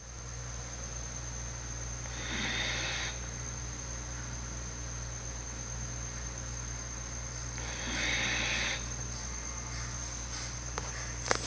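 A sleeping person snoring: two breathy snores about five and a half seconds apart, each lasting about a second, over a steady faint high whine and a low hum.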